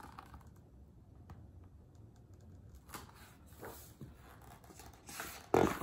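Pages of a hardcover picture book being handled and turned: faint paper rustles and light taps, with a short louder rustle just before the end.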